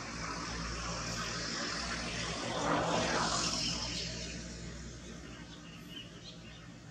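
A vehicle passing by: a rushing engine and road noise that swells to a peak about three seconds in, then fades away over a steady low hum.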